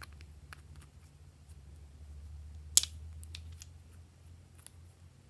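Small clicks and taps of glass nail polish bottles and their screw caps being handled and swapped, with one sharp, loud click about halfway through. A faint low hum runs underneath.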